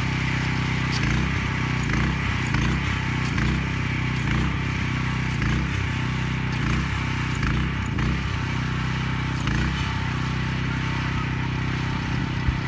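A small motor or engine running with a steady low hum.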